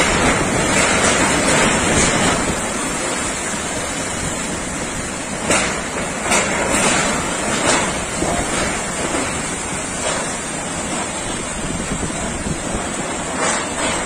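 Cyclone wind and heavy rain: a steady, dense rushing, with the wind buffeting the microphone and a few short louder gusts in the middle and near the end.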